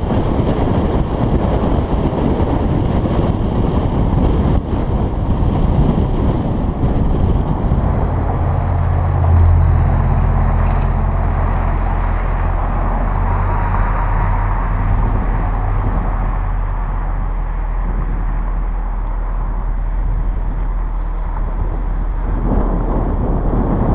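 Jaguar XKR's supercharged 5.0-litre V8 exhaust heard while driving with fuse 19 pulled, mixed with rushing wind and road noise. From about a third in the wind eases and a steady, low engine drone comes through, which grows a little quieter near the end.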